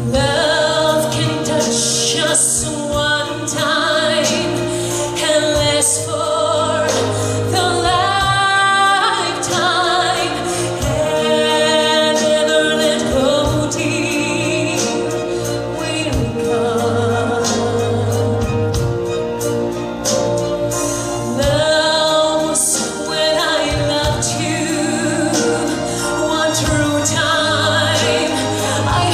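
Orchestral music with singing: a wavering vocal line carries the melody over steady low held notes.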